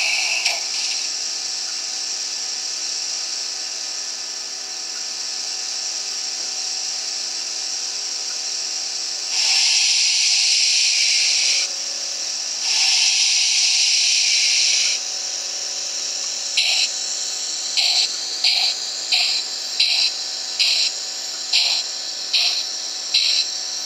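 Digital steam sound of a DCC sound-equipped HO-scale Piko 040 (G7 / BR 55) steam locomotive model: a steady steam hiss with two longer, louder bursts of steam about ten and thirteen seconds in. Then, from about sixteen seconds, slow exhaust chuffs come a little over one a second as the locomotive pulls away.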